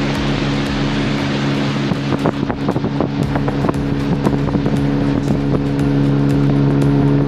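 Tourist boat's engine running steadily under way, with a scatter of small knocks and clicks starting about two seconds in.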